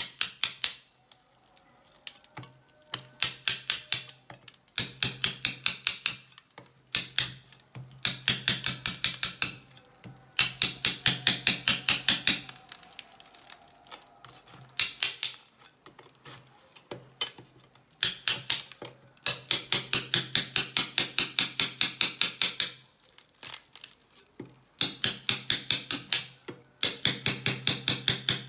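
A metal spoon tapping rapidly on a hardened salt crust to crack it open, in runs of sharp knocks about eight a second with short pauses between runs.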